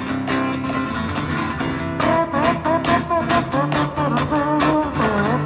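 Strummed guitar playing an instrumental break between verses, with a wavering melody line coming in over the strumming about two seconds in.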